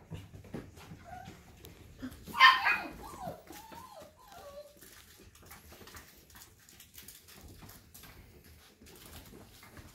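Mini goldendoodle puppies yipping and whimpering: one loud yelp about two and a half seconds in, followed by a few wavering, falling whines. Scattered light clicks and taps run throughout as the puppies scramble around on the hardwood floor.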